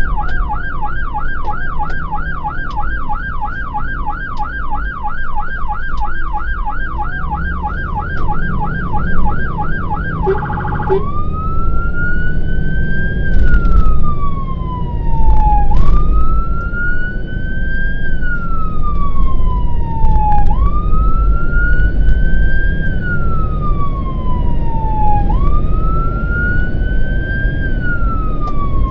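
Fire engine's electronic siren, heard from inside the cab: a fast yelp for about ten seconds, then switching to a slow wail that rises quickly and falls away over several seconds, repeating. The fire engine's engine and road noise rumble underneath.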